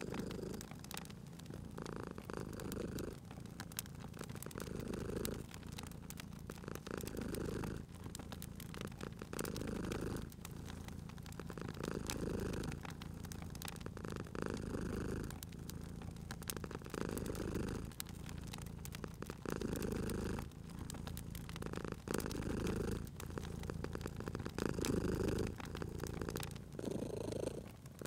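Domestic cat purring steadily, the purr swelling and fading with each breath about every one to two seconds. Sharp crackles from a wood fire pop faintly throughout.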